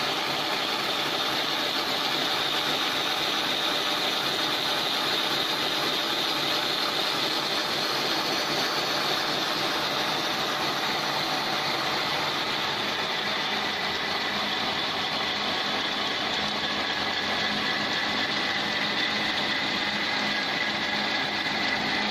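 Wire scrubber-making machine running steadily, feeding thin wire from a spool and winding it in its rotating head: an even, dense mechanical whirr with a faint high whine and a low hum.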